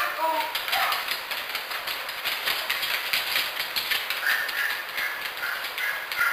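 Quick irregular clicking and tapping of a dog's claws on a hardwood floor as it trots around, mixed with the taps of a walking cane on the floor. A few short high tones sound near the end.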